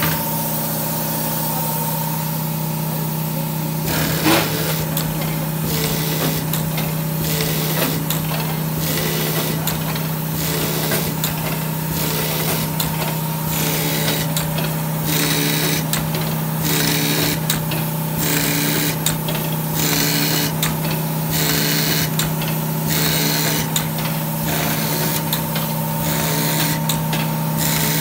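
Pneumatic needle seeder at work: a steady machine hum, with a sharp knock about four seconds in, then a hiss of air and a short clack repeating about every second and a half as the needle bar cycles over the seed trough and plug tray.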